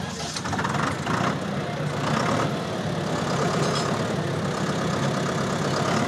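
Tractor engine running steadily, heard close up from the driver's seat.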